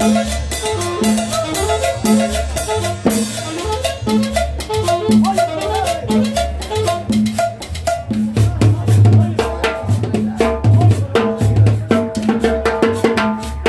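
Live tropical dance band playing: upright bass plucking a steady bass line under drums and percussion, with a saxophone among the instruments. A louder melody line comes in about eight seconds in.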